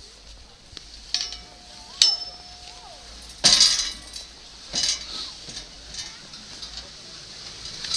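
Two metallic clinks with a short ring from the chairlift chair arriving at the top terminal, then a loud scrape as skis touch down on the snow of the unload ramp, a second scrape, and the steady hiss of skis sliding off.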